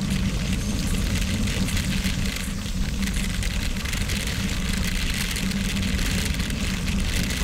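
Wind rushing over a bike-mounted action camera's microphone, with gravel bike tyres crunching and humming over a loose gravel road at racing speed (about 23–25 mph). The sound is steady throughout.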